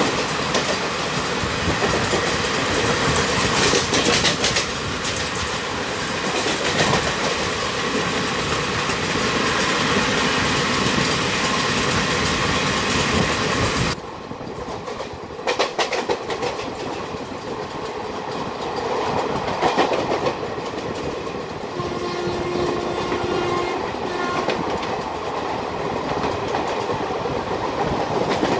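Two passenger trains running side by side on adjacent tracks, heard from the open door of one coach: wheels clattering over rail joints amid a steady rush of rolling noise and air. The noise drops suddenly about halfway through and stays quieter. Near the end a faint horn-like tone is held for about two seconds.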